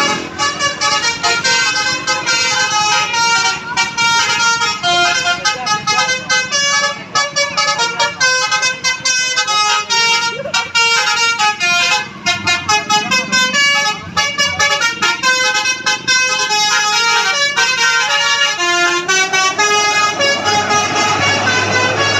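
Bus 'telolet basuri' musical air horn playing a fast tune of short notes that jump in pitch, several sounding at once, with a few brief breaks. A lower held tone joins near the end.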